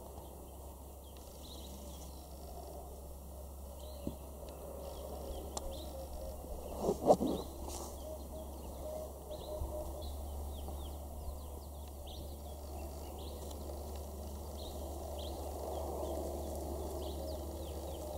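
Bush ambience: small birds chirp repeatedly over a steady low hum, with a brief loud noise about seven seconds in.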